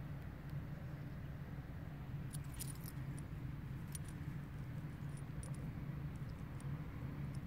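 Light metallic jingling and clicking from the cat's harness tag and leash clip as the cat crouches and paws at a mouse, in scattered bursts over a steady low background hum.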